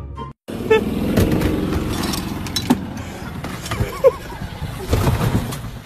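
Golf cart driving across grass: steady running and rumbling noise with a few knocks, and brief voices over it.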